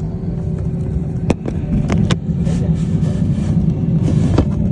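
Airliner cabin noise heard at the window seat: a steady low rumble of the jet engines and the aircraft rolling on the ground. A few sharp clicks or knocks cut through it, about a second in, twice around two seconds, and near the end.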